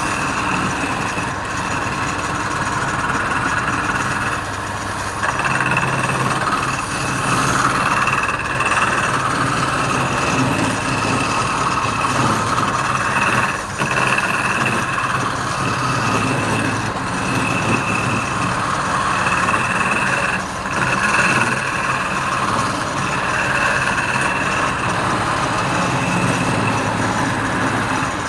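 Wood lathe running steadily, with a turning tool cutting the spinning wood in passes that come and go every few seconds.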